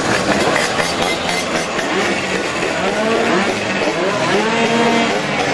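Several small two-stroke mopeds ridden past one after another, their engines revving up and down and overlapping as each goes by.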